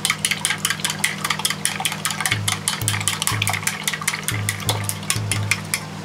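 Wooden chopsticks beating eggs in a stainless steel bowl: a quick, even run of clicks as the chopsticks tap the bowl, several a second, stopping just before the end.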